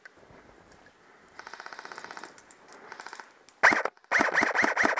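Airsoft guns firing: a faint, fast string of shots about a second and a half in, then, from near the end, an airsoft rifle firing loud, rapid, evenly spaced shots in quick strings.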